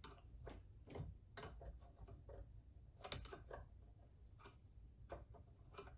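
Faint, irregular light clicks and ticks of hands and small parts being handled inside an opened sewing machine's bobbin and feed-dog area, against near silence.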